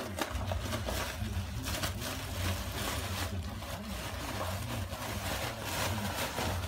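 Plastic air-cushion packing crinkling and rustling as a pug walks and roots through it, in irregular crackles, over a steady low rumble. A single sharp snap right at the start.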